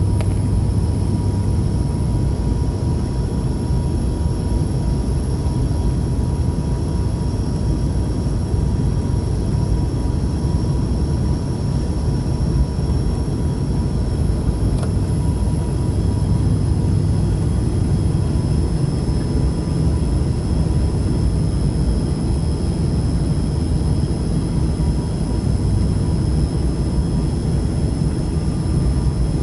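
Airliner noise during a landing approach: a loud, steady low rumble with a thin, steady whine above it.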